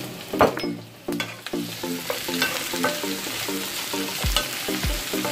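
Vegetables sizzling in coconut oil in a nonstick frying pan, stirred with a spoon that scrapes and clicks against the pan. Background music with a steady beat plays under it, and a low thumping beat comes in about four seconds in.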